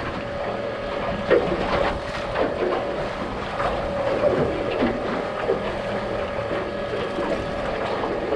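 The boat's outboard motor running with a steady drone, under wind on the microphone and the uneven wash and slap of water against the hull.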